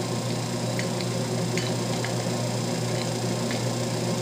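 Old belt-driven metal lathe running steadily as a reamer is fed from the tailstock into the spinning part, with a few faint ticks over the hum.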